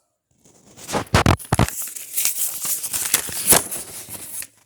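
Packaging rustling and crinkling as it is handled, with a few sharp clicks about a second in and again past the three-second mark.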